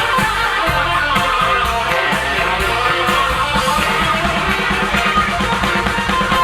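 Live rock band playing a guitar-led instrumental passage, with no singing.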